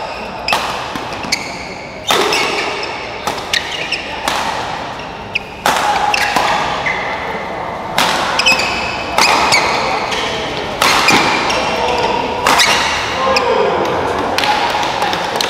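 A badminton rally: rackets strike the shuttlecock in sharp cracks, about one every second at uneven spacing, with spectators' voices and shouts behind them in a large hall.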